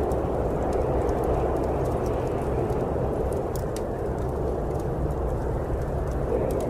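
Steady rushing snowstorm wind with a low rumble, and the small sharp crackles of a wood fire popping now and then over it.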